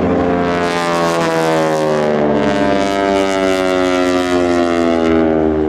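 North American T-6 Texan's nine-cylinder radial engine and propeller droning as the aircraft flies past, the pitch sliding slowly down through the pass.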